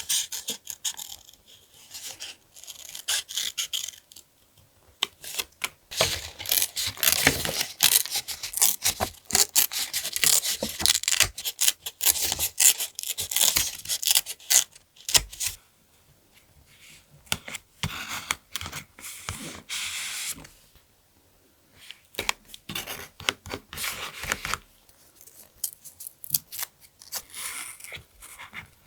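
Paper being torn and handled close to the microphone for a collage: dense runs of sharp crackles and scrapes, the longest in the first half, then several shorter bursts separated by brief pauses.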